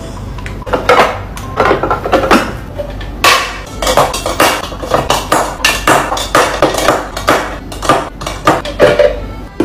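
Lipstick tubes and small cosmetic bottles clacking and clinking as they are set down into clear acrylic makeup organizers: an irregular run of sharp knocks starting about a second in.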